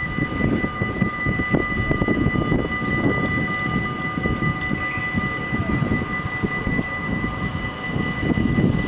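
Level-crossing warning bells ringing continuously with the barriers down, over a low rumbling.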